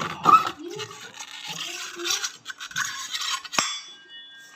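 Metal parts of an opened Honda ADV 160 scooter CVT being handled and turned by hand: scraping and clinking of steel. A sharp metallic click about three and a half seconds in leaves a short ringing tone.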